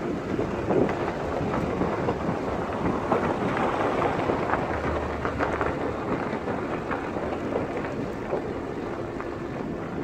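A vehicle travelling on a gravel road: steady tyre noise with small crackles from the loose stones, mixed with wind on the microphone.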